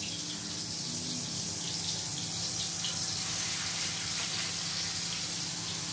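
Prawn vadas shallow-frying in hot rice bran oil: a steady sizzle, with a low steady hum underneath.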